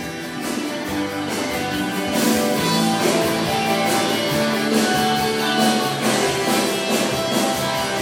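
Background music led by strummed guitar with a steady beat, getting louder about two seconds in.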